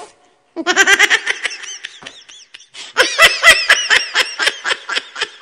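People laughing hard in rapid, repeated bursts of laughter. There is a first round, a short lull about two and a half seconds in, then a louder second round from about three seconds in.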